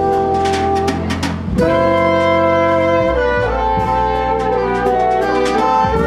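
Jazz quintet playing Brazilian jazz: horns hold chords in harmony over bass and drums, with light cymbal strokes. The harmony moves to a new chord about one and a half seconds in.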